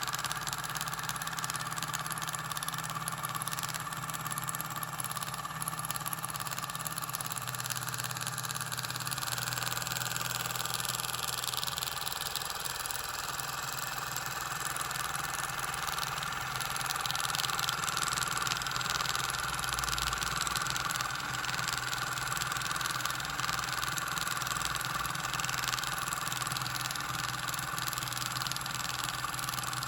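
Dot peen (pin) marking machine running, its pin hammering rapidly on the workpiece to make a steady mechanical buzz.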